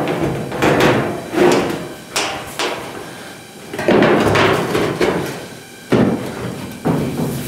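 Loose replacement steel quarter panel being pushed and shifted by hand against a 1970 El Camino's body while it is test-fitted: about half a dozen sharp sheet-metal knocks, each followed by a short ringing rattle.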